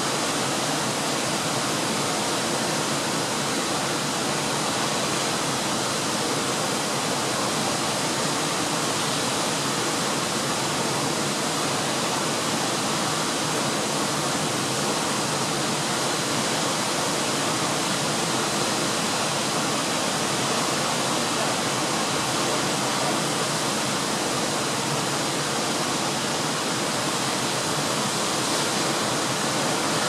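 Siklawa mountain waterfall, a steady unbroken rush of water cascading down a rocky cliff.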